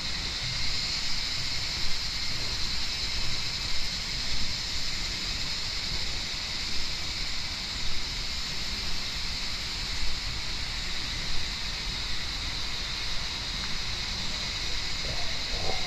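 Outdoor ambience: a steady high-pitched hiss over low wind rumble on the microphone, with soft thumps about once a second.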